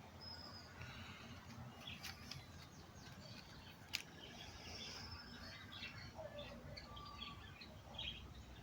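Several birds chirping and calling faintly at once: many short, scattered chirps and whistles over a low background hum of the countryside, with a single sharp click about four seconds in.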